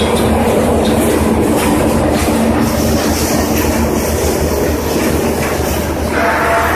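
Scrap metal crusher running: a steady heavy machine hum under continuous clattering and clanking of metal, with a brief squeal near the end.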